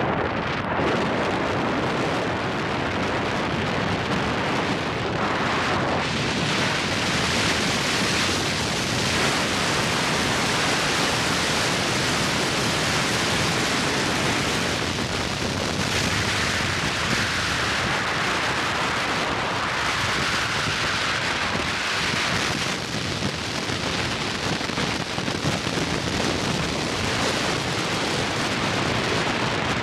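Steady rushing tyre and wind noise from a moving car, with the hiss swelling and easing now and then.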